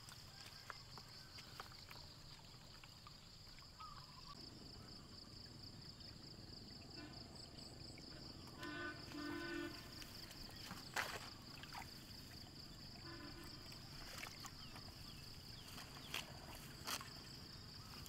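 Quiet outdoor ambience: a steady high-pitched drone, a short pitched animal call about halfway through, and a few sharp clicks as the net is handled.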